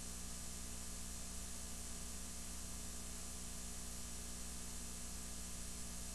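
Steady hiss with a low electrical hum underneath, unchanging and with no other sound: the bare noise floor of an analog home-video transfer with no recorded sound.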